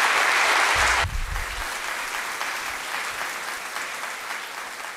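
Audience applauding, loud for about the first second, then dropping suddenly and fading away gradually.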